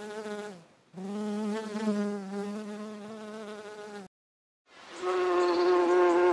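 Flying insects' wings buzzing in three separate spells. The first fades out about half a second in, a second buzz runs from about one second to four seconds with a slightly wavering pitch, and after a brief silence a higher-pitched buzz starts near the end.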